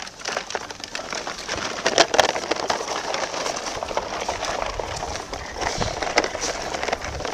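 Irregular clattering and knocking of plastic toy vehicles being handled and loaded onto a toy truck.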